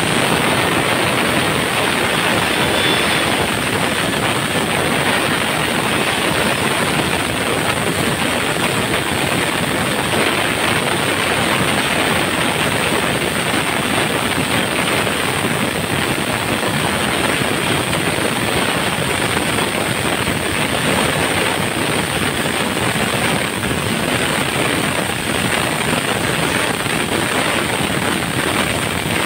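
Electric angle grinder driving an 11.5-inch chainsaw adapter at full speed, its chain cutting steadily through a wooden post. There is a constant high motor whine over the rasp of the chain in the wood.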